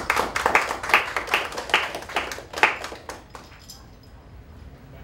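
A small group of people clapping by hand, thinning out and stopping about three seconds in.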